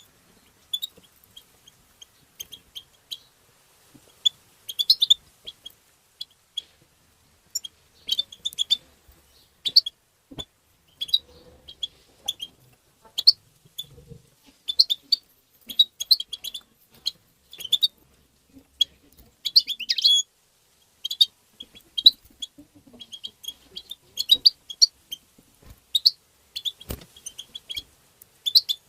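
European goldfinch calling: quick clusters of short, high twittering call notes, coming about once a second with brief gaps.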